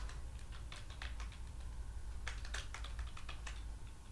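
Computer keyboard being typed on: quick, irregular key clicks over a low steady hum.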